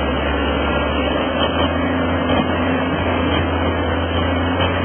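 Rushing whitewater river with the steady low drone of a Caterpillar bulldozer's diesel engine working through the current.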